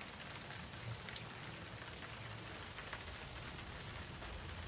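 Steady rain: an even hiss with scattered individual drops standing out.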